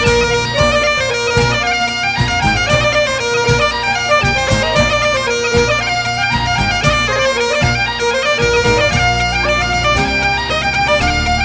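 Background music: a bagpipe tune playing a stepping melody over a steady drone, an instrumental passage of a Scottish folk song.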